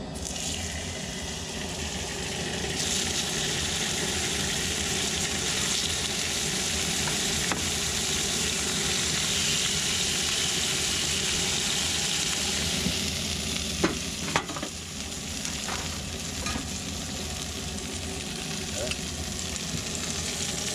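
Steaks frying in hot grease in a cast iron skillet: a steady sizzling hiss that grows louder about three seconds in, with a few sharp clicks about two-thirds of the way through.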